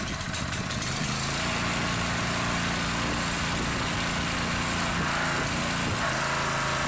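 Small gas pressure washer engine running, uneven for the first second or so, then settling into a steady drone.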